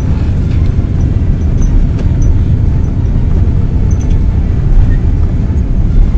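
Boeing 787 jet engines at takeoff thrust heard from inside the cabin during the takeoff roll: a steady low rumble of engine and runway noise.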